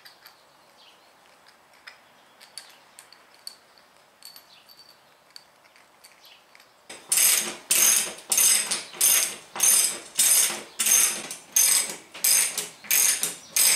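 Ratchet socket wrench clicking in quick, evenly repeated strokes, about two a second, as a lag screw is driven up into a ceiling joist. These start about halfway through. Before that there are only faint small clicks of the screws being handled.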